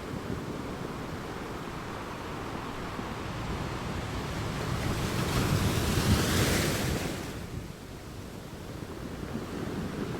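Sea waves washing onto a beach: a steady wash of surf that swells, and one wave breaks with a loud hissing rush about six to seven seconds in, then falls away.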